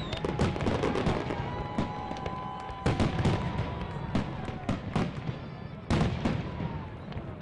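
Fireworks display: aerial shells bursting in a string of sharp bangs over continuous crackling. The loudest bangs come at the start, about three seconds in, and about six seconds in.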